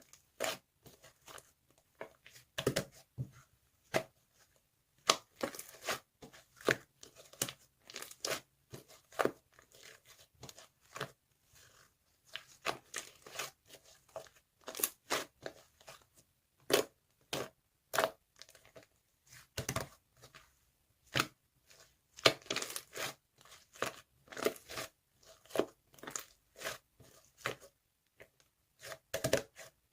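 Irregular crackling and crunching clicks from a doll, the strange noise coming from inside it.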